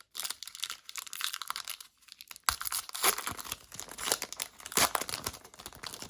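Plastic trading-card pack wrapper being torn open and crinkled by hand, a run of crackling rustles. There is a short pause about two seconds in, and louder crinkling follows.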